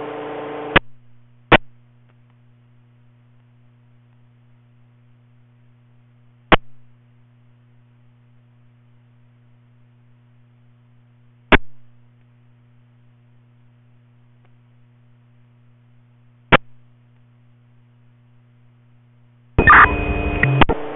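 Radio scanner monitoring school-bus two-way radio traffic between calls. Just under a second in, the end of a transmission cuts off. Then a faint steady mains hum, with sharp clicks about every five seconds. Near the end another transmission keys up with a loud burst of radio noise and a steady high tone.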